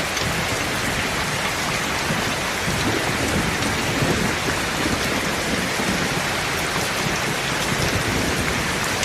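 Rain falling steadily, a constant hiss of drops on surfaces, with a low rumble swelling for several seconds in the middle.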